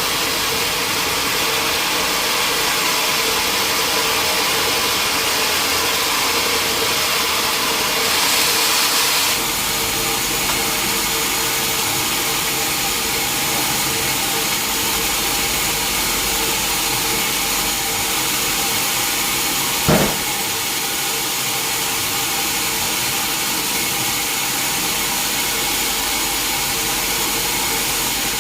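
Sawmill machinery running steadily, a continuous mechanical drone with a steady hum, swelling briefly about eight seconds in; a single sharp knock about two-thirds of the way through.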